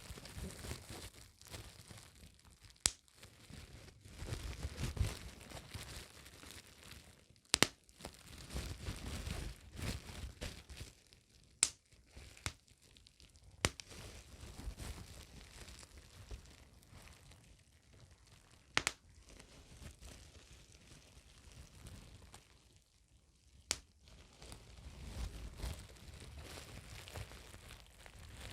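Bubble wrap being crinkled and handled, with about six sharp single pops spread a few seconds apart.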